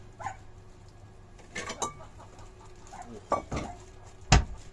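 Kitchen clatter of dishes and utensils being handled and set down on the counter: a handful of scattered clinks and knocks, with one sharp knock near the end the loudest.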